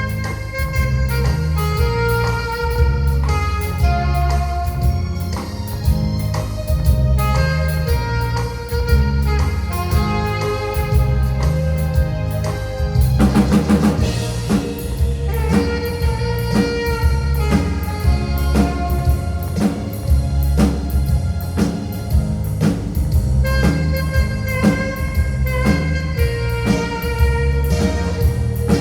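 Alto saxophone playing a melody of held notes over keyboard and a drum kit in a live instrumental band performance, with a cymbal crash about halfway through.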